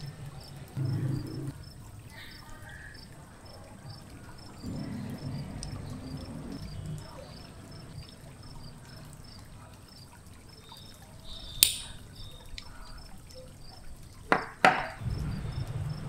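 Small die-cast toy tractor parts handled and fitted together by hand: low muffled rubbing in patches, one sharp click about two-thirds of the way in and two louder clicks near the end. A faint, regular cricket-like chirping runs underneath.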